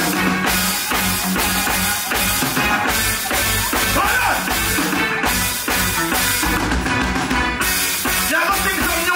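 Live reggae band playing a steady beat on drum kit and keyboards.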